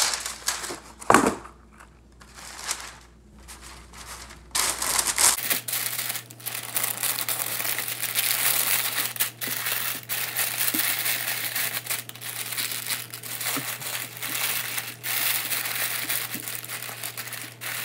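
Parchment paper crinkling and rustling as it is folded and tucked around a whole raw chicken on a baking tray: a few sharp crackles at first, then continuous rustling from about four and a half seconds in.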